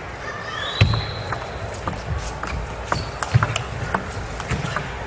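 Table tennis rally: the ball clicks rapidly back and forth off the rackets and the table, with a few heavier thuds of footwork and a brief high shoe squeak on the court floor about half a second in.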